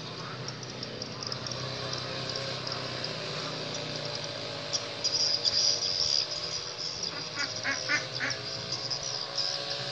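Steady high chirring of insects, with a short run of duck quacks about three-quarters of the way in.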